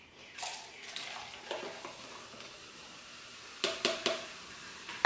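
Carbonated lemon-lime soda fizzing and splashing as it is poured from one plastic cup into another, with a few light knocks of the cups a little over three and a half seconds in.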